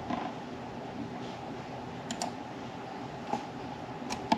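Scattered clicks from a computer mouse and keyboard, including a quick pair about two seconds in and another pair near the end, over a steady low background hum.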